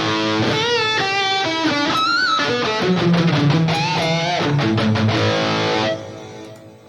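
High-gain distorted electric guitar played through a Fractal Audio Axe-Fx III amp modeller with delay on: a lead line of single notes with bends and vibrato. About six seconds in the playing stops and the delay tail fades away.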